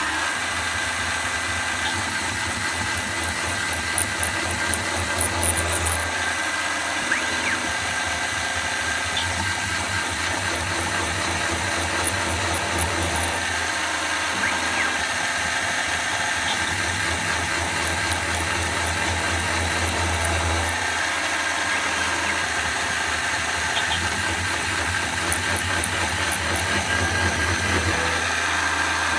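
Benchtop milling machine spindle running steadily with a constant whine, drilling holes in metal: four spells of about three seconds each, every 7 to 8 seconds, where the bit cuts with a squeal and sharp crackling clicks.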